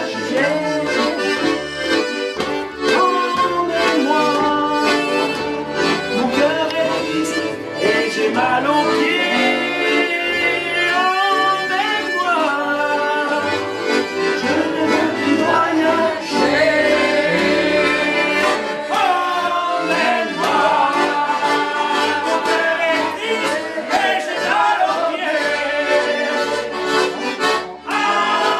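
Instrumental break of a folk song, an accordion playing the tune without singing.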